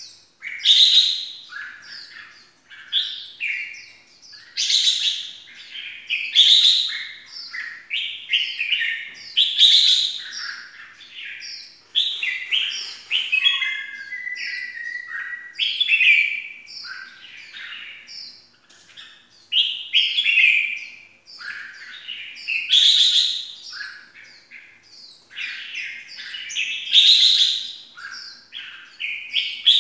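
Red-whiskered bulbul calling repeatedly. Loud, short, sharp phrases come every few seconds, with quieter chirps between them.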